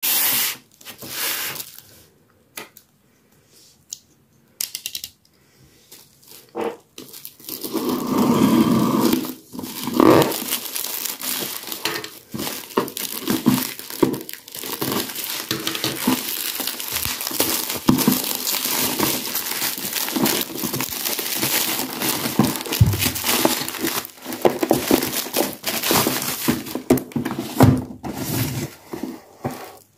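Packaging crinkling and tearing, mixed with sharp handling clicks, as a new airsoft pistol is unpacked. A few scattered clicks at first, then steady crackly rustling from about eight seconds in.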